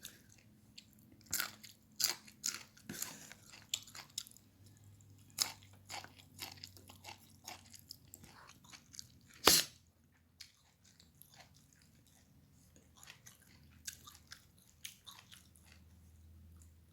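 A person chewing and crunching food close to the microphone: irregular crisp crunches, the loudest about nine and a half seconds in, with a quieter stretch after about ten seconds.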